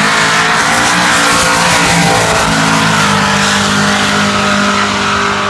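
Drag-race cars, a 1969 Chevy Nova against a Ford Mustang, launched and running at full throttle down the strip. The loud engine note climbs in pitch at first, then holds steady, easing off a little near the end.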